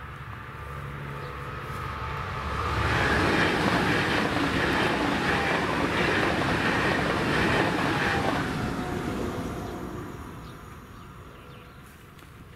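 Pendolino electric tilting train passing at speed. The wheel and rail noise builds over a couple of seconds, stays loud for about five seconds, then fades away.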